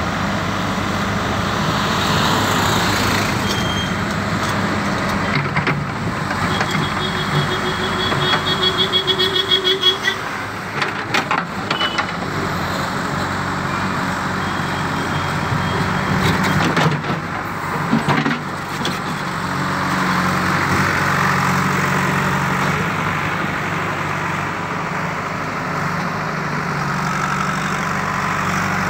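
JCB backhoe loader's diesel engine running steadily as it works, with a few sharp knocks about eleven seconds in.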